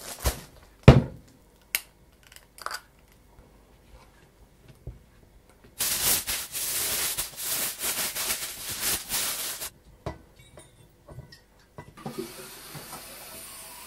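Packed-lunch making at a kitchen counter. A few knocks and clatters of a knife and items set down come first, then about four seconds of loud crinkling as foil is wrapped around a sandwich. Near the end, juice pours from a glass jug into a metal drinks bottle with a steady hiss.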